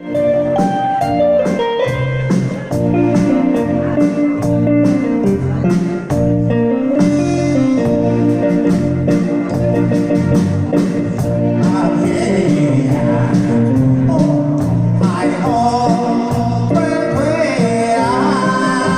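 Music for a Taiwanese-language song, with bass and guitar over a steady beat. A wavering melody line with vibrato comes in about twelve seconds in.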